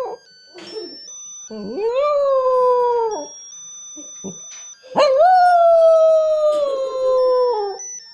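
Small dog howling twice, a short pause between: each long howl jumps up in pitch at the start and then slides slowly down. The second howl, about five seconds in, is louder and longer than the first.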